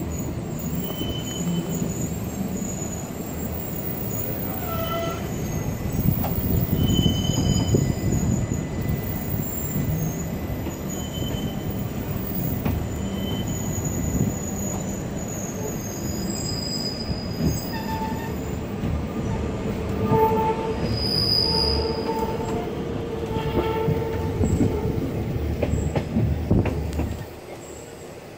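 Bernina Express narrow-gauge train running on a tight curve, heard from on board: a steady rumble of wheels on rail with intermittent high-pitched wheel squeal. The rumble drops away suddenly near the end.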